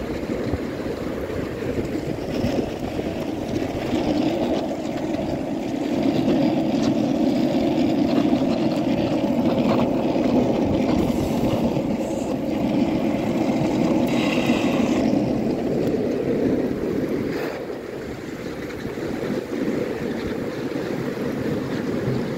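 Steady rushing of a fast mountain river tumbling over boulders, swelling louder for several seconds in the middle and easing near the end.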